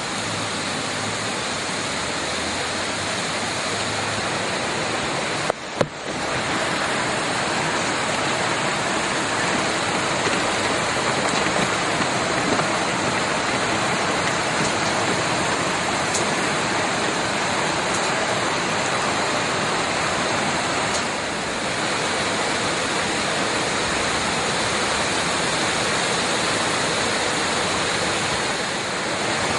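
Floodwater rushing in a steady, dense wash of noise, broken once by a brief cut with a couple of sharp clicks about six seconds in.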